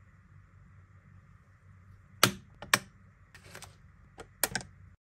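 Steelbook Blu-ray case being handled by gloved hands: about five sharp clicks and taps of discs and plastic disc tray starting about two seconds in, with a short paper rustle from the digital-code insert between them.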